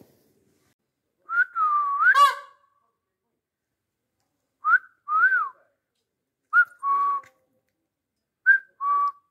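A person whistling four short two-note phrases, each a quick high chirp followed by a longer note that bends or holds steady, spaced a couple of seconds apart.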